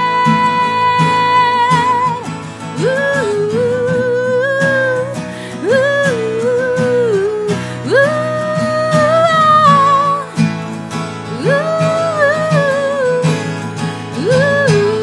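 A woman singing over acoustic guitar strumming: a long high held note that wavers and ends about two seconds in, then phrases that swoop up into each note and step back down.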